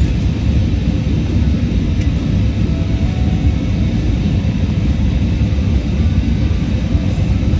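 Steady low rumble of engine and airflow noise inside an Airbus A320's passenger cabin in flight, with faint music under it.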